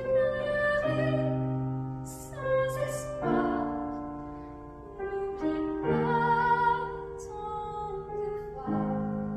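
A female voice singing a slow ballad in French over piano chords, with long held notes.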